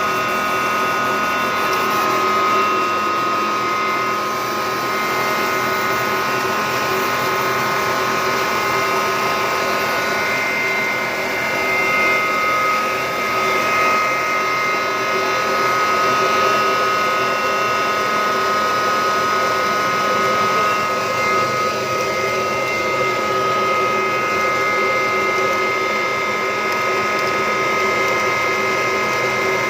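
FFC-45 disk mill running steadily, a loud, even machine whine with several steady high tones held throughout.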